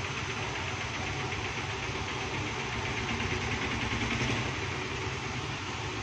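Steady background noise: a low hum under an even hiss, swelling slightly about four seconds in.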